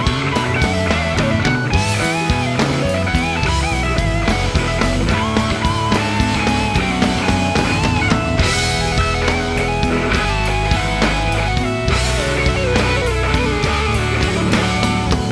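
Rock music with electric guitar and a drum kit: a guitar lead over steady drumming, with cymbal crashes every few seconds.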